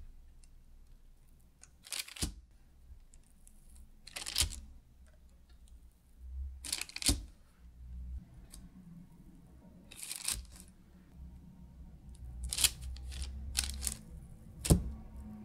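Hands pressing balls of cookie dough flat on a parchment-lined baking tray: a series of short crinkles of parchment paper and light taps on the tray, about seven in all, the sharpest near the end.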